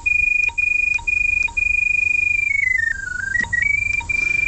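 Electronic drain locator receiver sounding a steady high tone, broken by short gaps about every half second, that steps down in pitch around the middle and climbs back up. The pitch changes as the locator homes in on the drain camera's sonde to read its depth.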